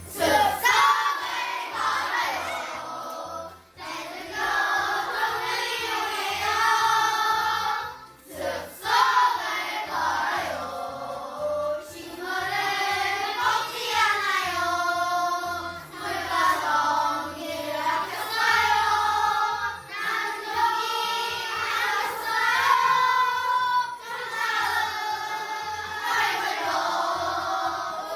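A group of children singing a song together in unison, in phrases of a second or two, over a light instrumental accompaniment.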